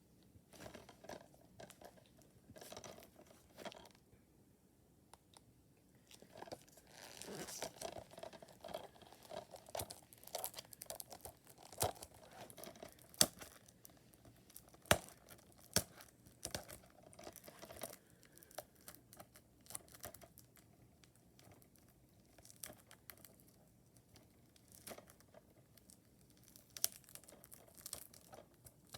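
Packaging being torn and crinkled off a new DVD box set, irregular crackling with a few sharp clicks.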